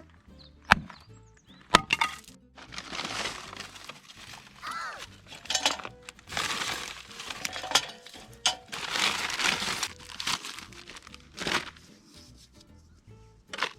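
Background music, with two sharp cracks about a second apart near the start, then several bursts of hissing noise lasting a second or two each.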